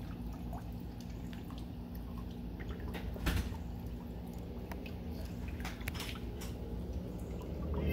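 Scattered clicks and one louder knock about three seconds in, from tools and metal parts being handled at the outboard's thermostat cover. Water drips underneath, over a steady low hum.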